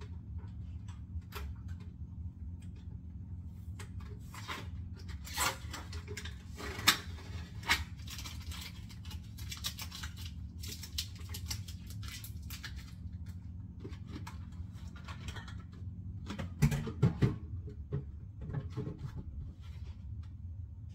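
Dishes being washed by hand in rubber gloves: scattered clinks, taps and rubbing of dishware and gloves, with a couple of sharp clinks about seven seconds in and a short run of duller knocks near the end, over a steady low hum.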